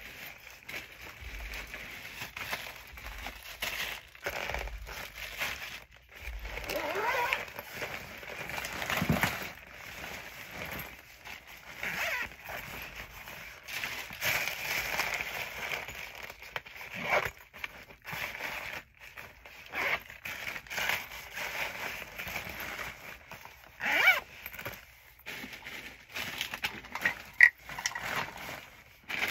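Plastic bags and packaging rustling and crinkling in irregular handfuls, with a few louder scrapes, as supplies are handled and packed into a bag.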